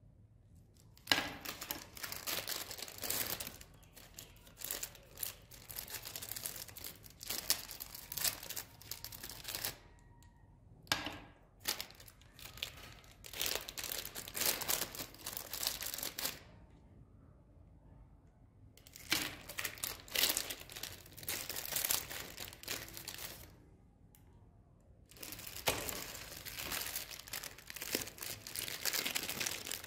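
Plastic lollipop wrappers crinkling and tearing as they are handled and unwrapped, in bursts of several seconds with short pauses between them.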